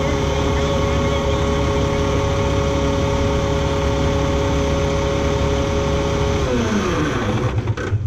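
Heavy truck's diesel engine running steadily, then shut off about six and a half seconds in, its pitch falling as it winds down and stops near the end.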